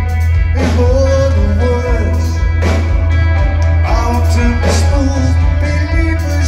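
Live rock band playing through a loud PA: a man singing over electric guitar, heavy bass and drums, with strong hits about every two seconds.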